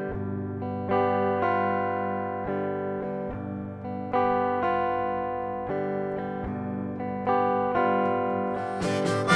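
Guitar intro to a blues song: chords struck about once a second and left to ring out. Drums and cymbals come in near the end as the band joins.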